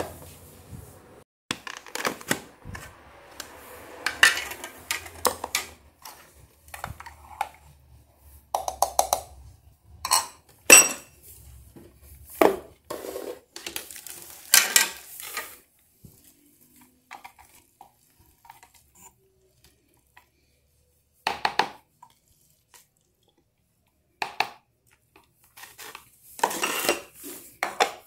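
Plastic parts of a mini food chopper and kitchen containers being handled: scattered clicks, knocks and clatters as the lid, blade and bowl are taken apart and set down on a stone countertop. There is a quiet stretch in the middle, then a few more knocks near the end.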